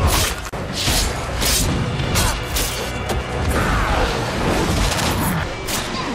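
Action-film fight soundtrack: dramatic score over heavy low booms, with a quick series of sharp hits and whooshes from punches, kicks and leaps.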